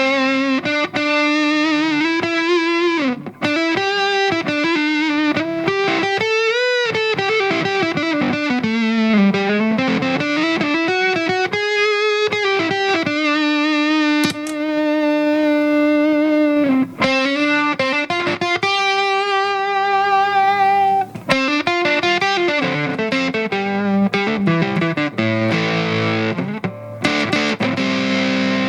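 Electric guitar played through a transistor fuzz pedal: a distorted single-note lead line with string bends and vibrato. Near the end it changes to short, choppy repeated notes.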